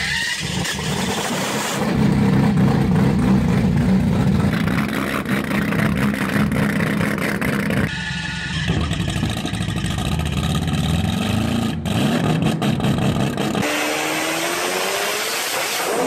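Four-rotor, four-turbo rotary engine of a Mazda RX-2 drag car running loudly, with its revs climbing near the end.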